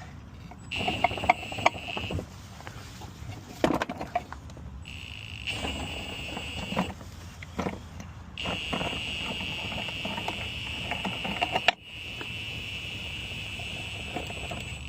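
Power drill with a socket running at its lowest speed, turning the spare-tire winch to lower the spare: a steady high motor whine in four runs of a few seconds each, the last two longest, with clicks and knocks in between.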